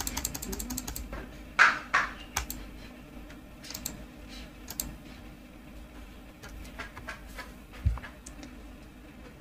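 Computer keyboard and mouse clicking: a quick run of keystrokes at the start, then scattered single clicks, with a low thump near the end.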